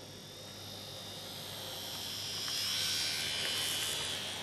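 N gauge model train's small electric motor whining as the train runs past close by, growing louder to a peak about three seconds in and easing a little as it goes by.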